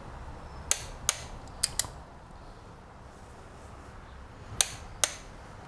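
Torque wrench clicking as the high-pressure fuel pump's T40 mounting bolts are tightened to 15.5 foot-pounds: six sharp clicks in three pairs, the last pair near the end.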